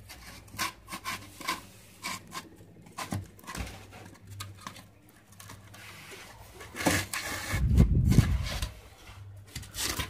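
Polystyrene foam sheets being handled and fitted onto a wooden box frame: scattered light taps and scrapes, with a louder stretch of rubbing and bumping about eight seconds in.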